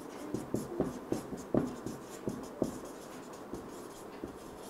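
Marker pen writing on a whiteboard: a run of short, irregular strokes and taps of the tip, busiest in the first two and a half seconds and sparser after.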